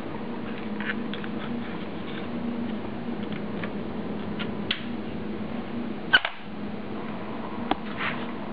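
Handling noise from a handheld camera filming a small model car: a steady low hum with a few sharp clicks, the loudest about six seconds in.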